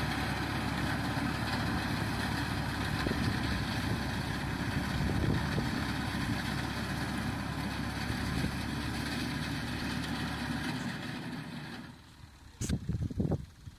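Massey Ferguson MF 260's turbocharged diesel engine running steadily under load as the tractor pulls a reaper through standing wheat. The engine sound drops away about twelve seconds in, followed by a few loud bumps near the end.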